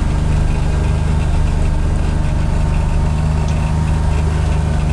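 John Deere XUV835M Gator utility vehicle's engine running at a steady, low hum.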